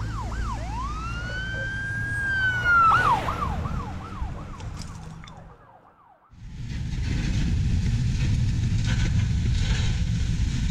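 An emergency vehicle siren over a low rumble. It sweeps fast in a yelp, about three rises and falls a second, switches to a long wail that climbs, holds and drops sharply, then goes back to the yelp and fades out about five seconds in. After a short break, a steady rush of wind noise and low rumble from riding an electric skateboard along the road.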